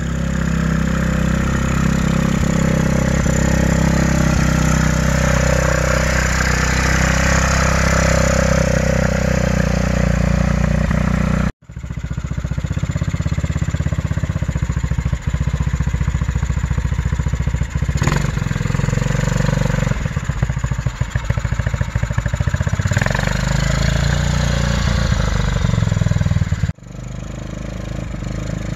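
Mini monster truck's 454 cc Arctic Cat Bearcat single-cylinder four-stroke engine running under way, exhaust breathing through a car muffler, its pitch rising and dipping with the throttle. The sound cuts off abruptly twice, about a dozen seconds in and again near the end.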